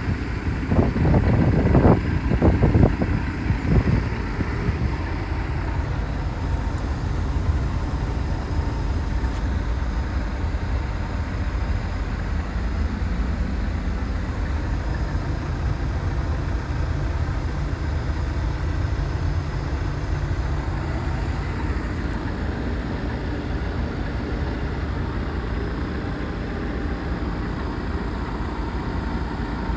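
CAT 317 excavator's diesel engine running at a steady idle, a low hum heard from inside the cab, with louder irregular noise over the first few seconds.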